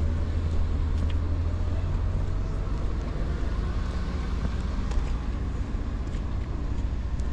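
Steady low drone of a car's engine with road noise, heard from inside the moving car; the pitch shifts slightly about halfway through.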